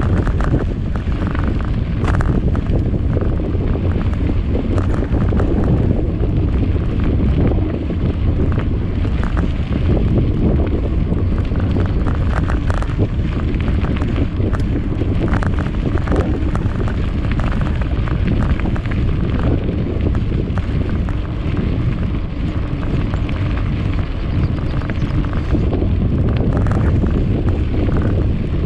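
Heavy wind buffeting on a camera microphone on a moving mountain bike: a steady, loud low rumble. Many small clicks and rattles, the bike jolting over a rough track, are scattered through it.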